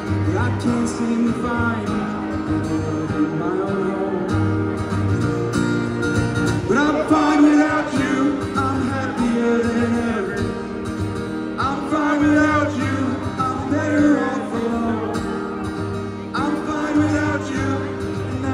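Live country music: a male singer with guitar accompaniment over a steady low bass pattern, the vocal phrases coming in from about a third of the way through.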